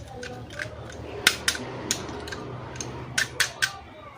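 Plastic toys and packaging being handled in an unboxing: a string of sharp clicks and snaps over a low steady hum, with the loudest clicks about a second in and a quick run of three near the end.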